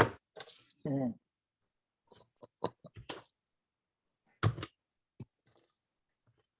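A brief man's voice in the first second, then a scattering of light, sharp clicks and taps, the loudest about four and a half seconds in.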